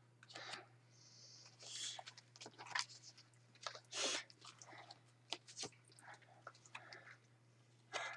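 Faint, irregular close-up noises: soft mouth clicks, breaths and brief whispery hisses, mixed with light handling of paper flashcards, over a steady low hum.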